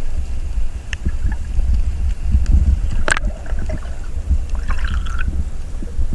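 Wind buffeting the microphone as a steady low rumble, over sea water moving at the shore.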